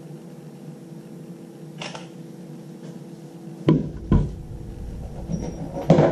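Knocks and clunks of vacuum-cleaner parts being handled by gloved hands during assembly: a soft knock about two seconds in, two sharp knocks close together around four seconds, and another near the end, over a steady hum.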